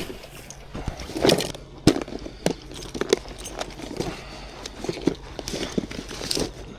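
Irregular sharp clicks and light knocks of fishing tackle being handled, a few a second, as a lure is swapped.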